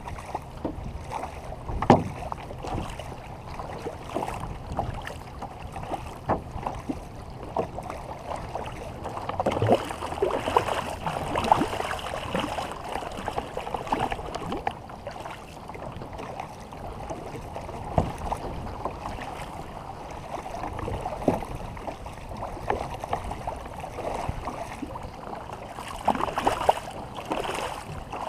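Water splashing and sloshing around a war canoe out on the water, in an irregular run of splashes, with a couple of sharp knocks.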